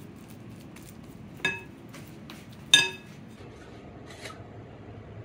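Two sharp clinks on a glass mixing bowl about a second and a half apart, the second louder, each ringing briefly, then a fainter knock near the end.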